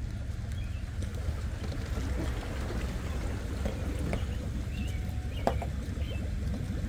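Tracker boat being backed down a launch ramp on its trailer and floating off into the water: a steady low rumble with water washing around the hull and trailer. A single knock sounds about five and a half seconds in, and a few bird chirps come through.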